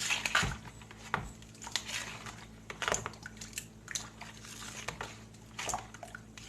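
A spoon stirring rice in almond milk in a bowl: irregular scraping and light clicks against the bowl, a few strokes a second.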